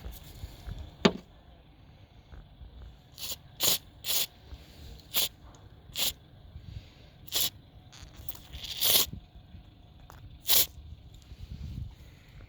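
WD-40 electrical contact cleaner sprayed from an aerosol can in about eight short bursts, cleaning electrical contacts. There is a single sharp click about a second in.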